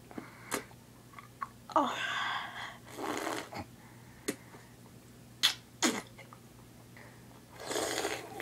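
Mouth sounds from a person sucking on an ice cube: sharp wet clicks and smacks of the lips and tongue, and three short hissing huffs of breath blown out through the mouth, the last near the end.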